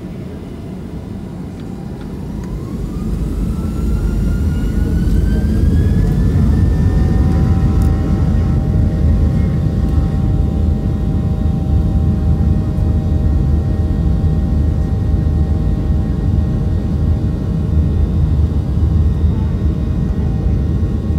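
Boeing 737 twin jet engines heard from inside the cabin, spooling up to takeoff power. About two seconds in, a whine rises in pitch and the level climbs for several seconds. It then settles into a steady loud roar with a high whine held over it.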